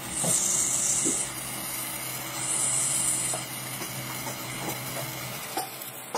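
Electric arc from a pointed carbon rod hissing and sizzling in two spells of about a second each, as it melts lead into a mould to rebuild a battery terminal post. A few faint crackles and a steady low hum sit underneath.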